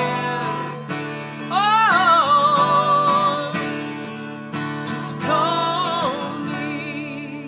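Closing bars of a song: a man singing long held notes with a wavering pitch over strummed acoustic guitar and violin, the last chord dying away near the end.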